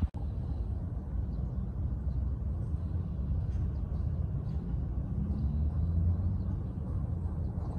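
Steady low outdoor rumble throughout, with a few faint ticks above it.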